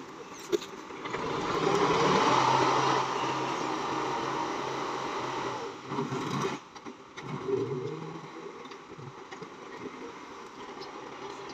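Massey Ferguson tractor engine running and revving up under load, loudest a couple of seconds in. It drops away suddenly about six and a half seconds in, picks up again briefly, then settles to a lower steady run.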